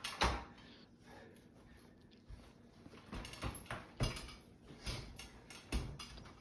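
Scattered light knocks and clicks, irregular and a second or so apart, over a quiet room.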